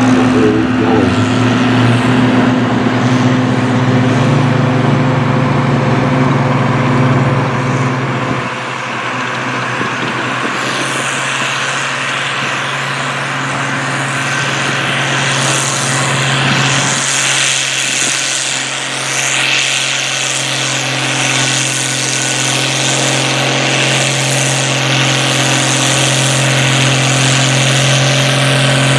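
Farm pulling tractor's engine running at a steady speed, its note shifting slightly twice.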